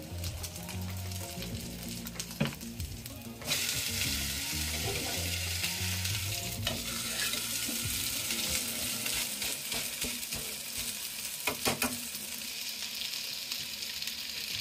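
Rice-flour chilla frying in ghee on a nonstick tawa: a sizzle that jumps suddenly louder about three and a half seconds in, as the pancake is flipped onto its uncooked side, then stays steady. A metal spatula taps and scrapes on the pan a few times.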